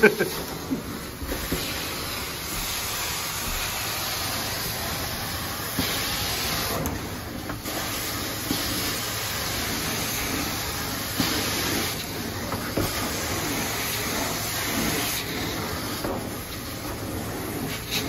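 Carpet-cleaning extraction wand running on the carpet: a steady rushing hiss of spray and vacuum suction as it pulls water back out of the pile, dropping briefly a few times between strokes.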